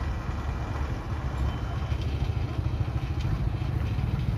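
Steady low engine rumble of vehicles creeping along at low speed: a tracked crawler carrier and motorcycles, growing a little louder about two seconds in.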